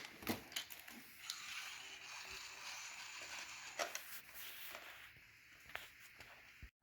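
Plastic parts of a DIY dinosaur puzzle kit being handled and worked apart: a few faint clicks and a stretch of scraping between about one and four seconds in.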